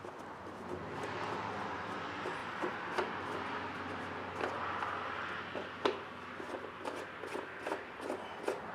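Handling noise of plastic engine shrouding being worked loose: rustling and scraping, with a few sharp clicks.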